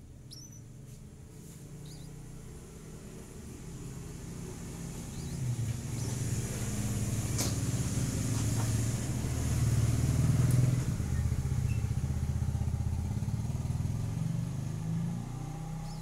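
A passing motor vehicle's engine: a low hum that builds to its loudest about ten seconds in, then fades. Faint high chirps, likely from the nestlings, are heard in the first couple of seconds, and there is a single sharp click partway through.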